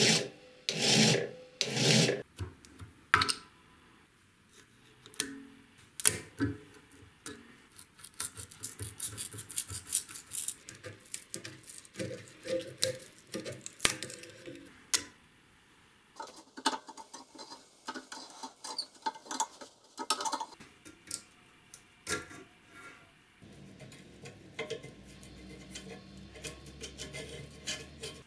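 A few strokes of a hand file on the rusted steel tang end of a billhook, then a long run of scraping, clicking and prying as a steel rod works at the old stacked-leather handle washers.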